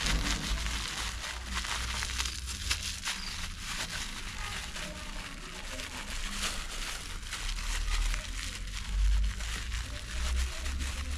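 Crinkling and rustling as sugar is poured out of its packet into the margarine, with many small crackles, over a low rumble.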